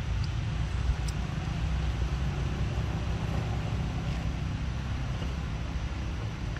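Steady low outdoor rumble, like wind on the microphone or distant traffic, with a couple of faint ticks and a faint short call.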